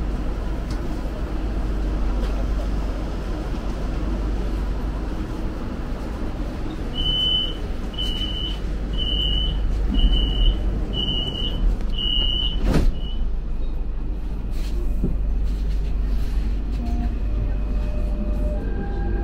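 Inside a subway car: a steady low rumble, broken about halfway through by six high beeps about a second apart, the door-closing warning, then a sharp knock as the doors shut. Near the end a steady electric whine sets in as the train starts to move.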